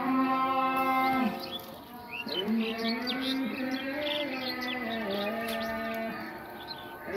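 A cow mooing in long, drawn-out calls: one ends about a second in, and another runs from about two and a half to six seconds, with small steps in pitch. Birds chirp over it.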